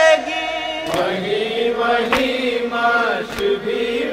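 Male voices chanting a nauha, an Urdu lament, in long drawn-out lines, with sharp beats keeping time about once every second or so.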